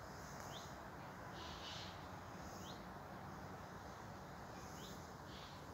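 Footsteps swishing through grass at a slow walking pace, about one soft swish a second, over faint outdoor background noise.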